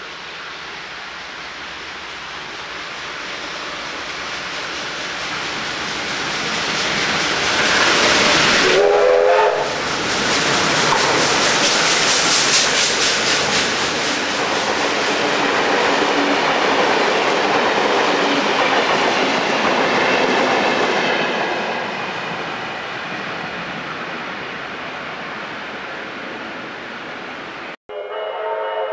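A double-headed steam train, NSW C32 class 3237 and D59 class 5917, approaches and runs through a station at speed. Its sound grows for several seconds, a short whistle blast comes about nine seconds in, and the loud rush and clatter of the locomotives and carriages on the rails follows before fading away.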